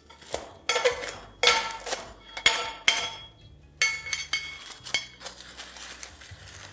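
A metal spoon clinking against a hammered copper biryani handi and crinkling its aluminium-foil seal as the foil is pried open after dum cooking: a series of sharp, briefly ringing clinks with rustling between.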